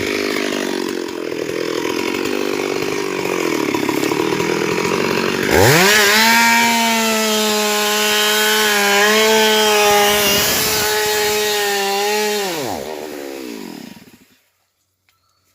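Stihl MS 382 two-stroke chainsaw running under load in the wood, then revving up sharply about a third of the way in to a steady high-pitched run at full throttle. It drops away and goes silent near the end.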